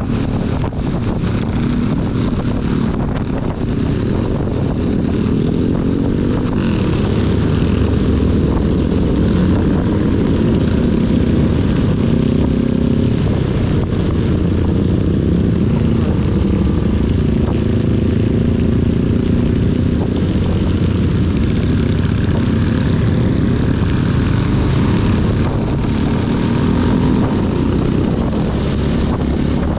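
Honda CB250 motorcycle engine running while riding, its note rising and falling with the throttle, over a steady hiss of rain and wind.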